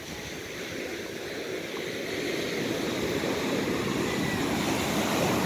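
Sea surf washing on a sandy beach, a steady rush that slowly swells louder.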